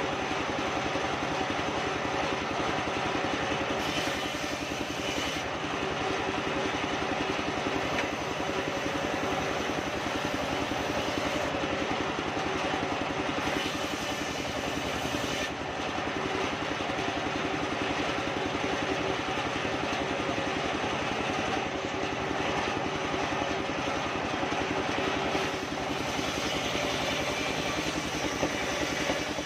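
Engine-driven circular sawmill running steadily, its large disc blade cutting through soft kapok (randu) wood being fed past it, with the sharper cutting noise rising for stretches.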